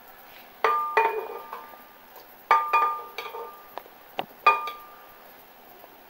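Glass blender jar knocked and clinking as roasted tomatoes are dropped into it from a plate: about half a dozen knocks, each leaving a short ringing tone in the glass.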